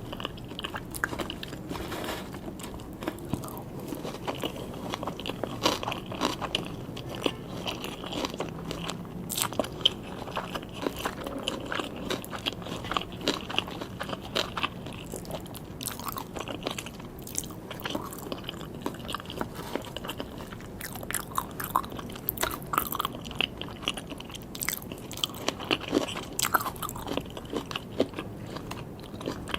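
Close-miked chewing and biting of sushi, with a continuous run of short, sharp crunches and mouth smacks.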